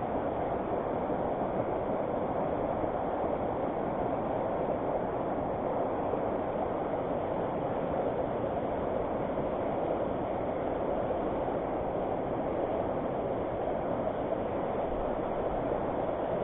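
Fast-flowing river water rushing, a steady even noise that does not change.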